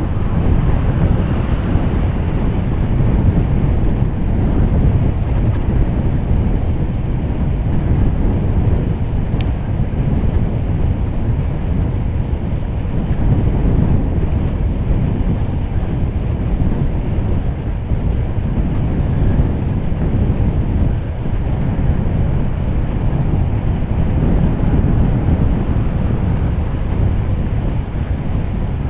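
Steady low rumble of wind buffeting a GoPro's microphone while riding a bicycle, mixed with the road noise of the tyres on asphalt.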